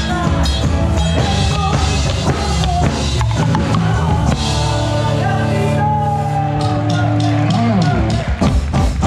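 Live folk-rock band music with drum kit and electric guitars. About halfway through the band holds a long sustained chord, and the rhythmic drum strikes come back in near the end.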